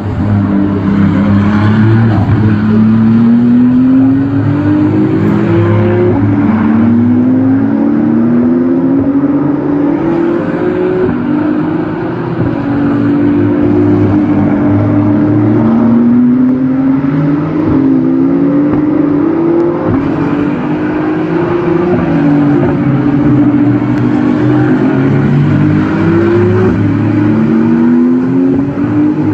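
Race car engine accelerating hard, its pitch climbing and dropping back again and again as it shifts up through the gears, over a steady low rumble.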